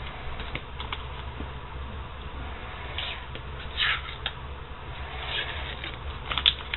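Blue masking tape being pulled off the roll and pressed around a sledgehammer's wooden handle: a few short ripping rasps, the loudest about four seconds in and near the end, over a steady low hum.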